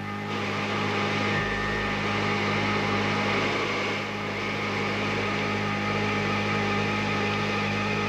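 Steady cockpit noise of a Tupolev Tu-22 bomber: a constant drone of fixed hums with a faint regular pulsing underneath, and a rushing noise that steps up just after the start.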